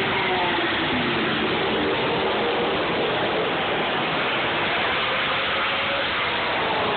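Racing cars going round a street circuit: a steady, loud din of engine noise, with the pitch of passing cars gliding down and then up.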